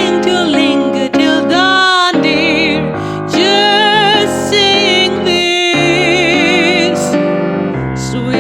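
Jazz ballad performance: a singer holds melodic notes with wide vibrato, without clear lyrics, over piano accompaniment.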